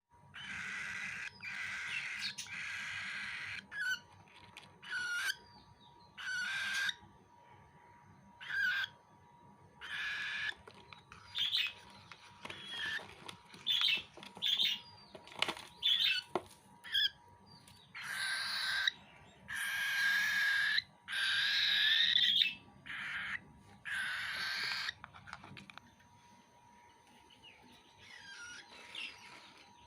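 A baby cockatiel giving a long series of harsh, raspy calls while it is being fed, each lasting up to about a second, with short gaps between them.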